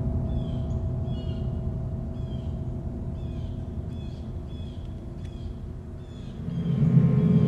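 Small birds chirping in short, repeated calls over a low steady drone that fades, then swells back up near the end.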